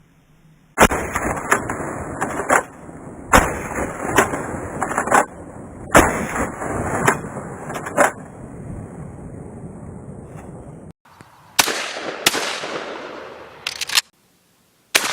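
Shotgun blasts: a quick string of about a dozen shots over the first eight seconds, then three or four more, more widely spaced, after an abrupt break near eleven seconds.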